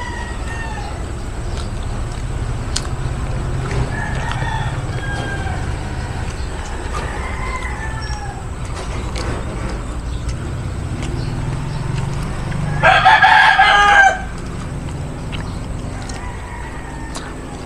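A rooster crows once about 13 seconds in, a loud call lasting just over a second. Softer, shorter bird calls come earlier over a steady low background hum.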